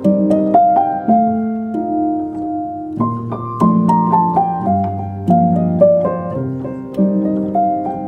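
Background piano music: a slow melody of struck notes ringing over held lower notes.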